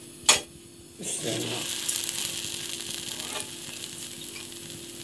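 A sharp knock about a quarter second in. Then, from about a second in, a steady sizzle as a bread sandwich cooks in hot oil on a flat pan.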